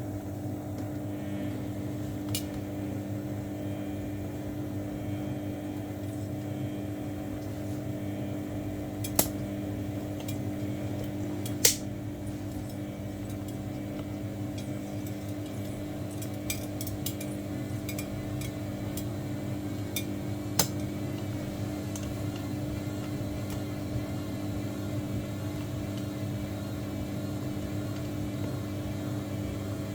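Samsung washing machine running with a steady motor hum, with scattered sharp clinks from the drum, the loudest about 9 and 11.5 seconds in.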